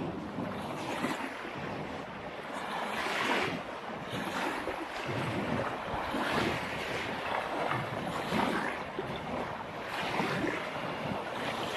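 Small waves washing onto a beach, swelling and falling back about every two to three seconds, with wind on the microphone.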